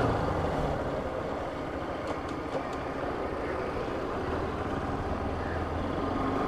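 Bajaj Pulsar RS200's single-cylinder engine running at low revs as the motorcycle rolls slowly. The engine note is weaker in the middle and picks up again near the end, with a few faint ticks about two seconds in.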